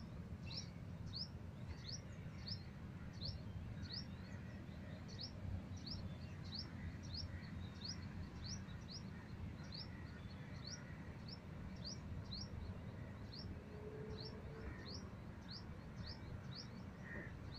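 American coot chick giving short, high, rising peeps over and over, about one and a half a second, the steady begging call of a chick waiting to be fed. A low steady rumble lies underneath.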